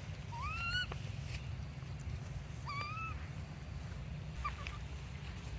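Baby monkey crying: three short cries that rise in pitch, a second or two apart, over a steady low rumble.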